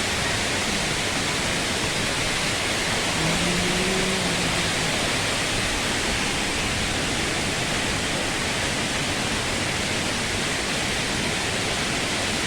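Waterfall's falling water rushing in a steady, loud, even wash, with a brief faint voice in the distance about three seconds in.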